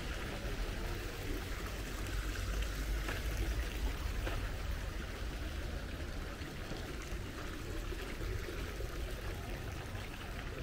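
Steady splashing of small garden fountains, over a low, unsteady rumble.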